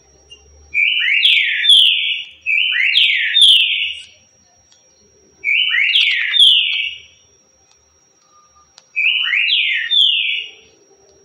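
Green-winged saltator (trinca-ferro) singing the 'currucutil' song type: four loud whistled phrases, each a quick run of sliding notes, the first two back to back and the others after short pauses.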